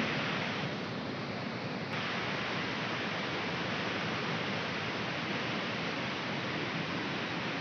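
Floodwater rushing steadily across a submerged road, a continuous hiss and roar of fast-flowing water.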